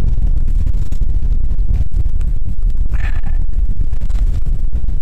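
Strong wind buffeting the microphone: a loud, steady low rumble with no letup.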